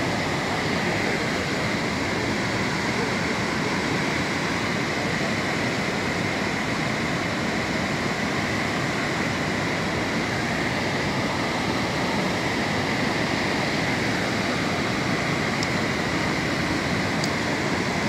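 A large waterfall in spate after heavy rain, a heavy flow of muddy water falling into a gorge, making a steady, unbroken rush.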